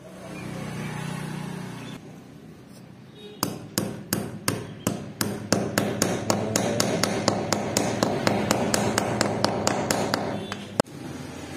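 Small hammer tapping a metal pin through a wooden knife handle to rivet the handle scales in place: sharp taps, a few spaced ones at first, then quickening to about four a second, with one last harder strike near the end.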